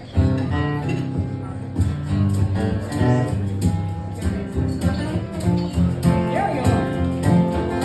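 Acoustic guitar strumming and picking the instrumental intro of a simple folk song, starting right at the beginning.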